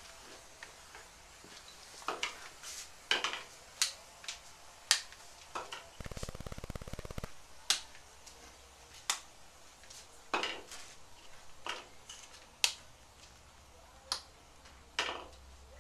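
Scattered sharp clicks and knocks, irregularly spaced, with a brief buzzing rattle lasting just over a second about six seconds in.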